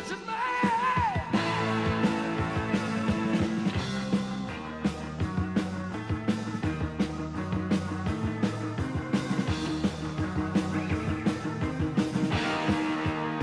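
Live rock band playing an instrumental passage: drums keep a steady beat under sustained bass and chord notes, with guitar on top. About a second in, a held lead note wavers and slides down in pitch.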